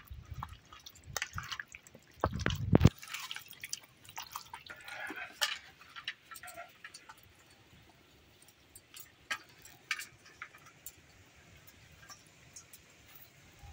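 Hands mixing raw chicken pieces in a yogurt, spice and mustard-oil marinade: irregular mixing sounds, busiest in the first half, thinning to a few faint clicks later.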